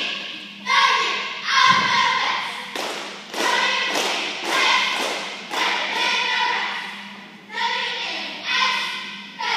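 Girls' cheer squad shouting a cheer in unison, one loud chanted phrase after another with sharp claps or stomps on the beat, each phrase ringing out in a large gym. A low thud about two seconds in.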